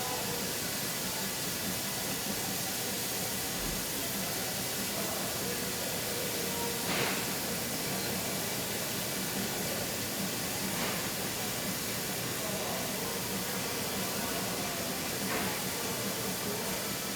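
Steady hiss of steam, with faint distant voices and three light clinks spread through.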